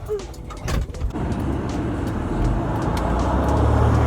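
A single thump, then a car's engine and road noise heard from inside the cabin as it gets going, a low hum that grows louder toward the end.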